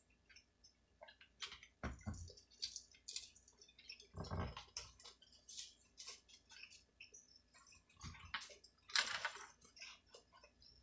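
Close-miked eating sounds: quiet wet chewing and mouth noises with scattered small clicks and crackles, and a few louder noises about 2, 4 and 9 seconds in.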